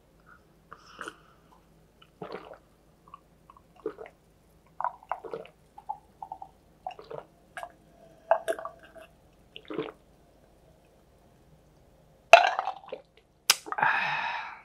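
Man drinking ice water from a glass mug in gulps, with small swallowing sounds and the ice shifting in the glass. About twelve seconds in comes a louder, sharp sound, then a short breathy sound near the end.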